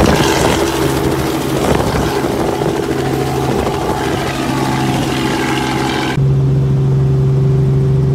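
Light helicopter lifting off and flying away, its rotor and engine noise dense and loud. About six seconds in, the sound cuts off abruptly to a steady low hum.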